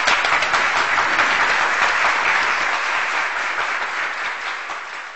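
Applause, many hands clapping together, steady and then fading away near the end.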